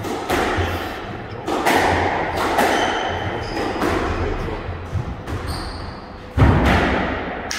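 Squash rally: the ball cracking off rackets and the court walls about once a second, with the loudest hit near the end. Short squeaks of court shoes on the wooden floor come in between.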